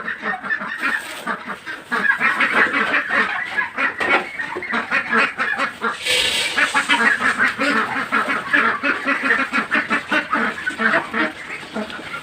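A flock of ducks calling loudly and continuously, many voices overlapping in a rapid clamour, excited at being fed. About six seconds in there is a brief rushing rustle, typical of feed being poured from a sack.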